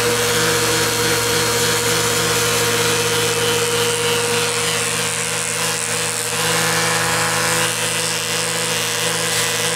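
Flowbee vacuum haircutter running steadily on a vacuum cleaner hose: a constant motor hum with suction hiss as it draws the hair up and cuts it to length.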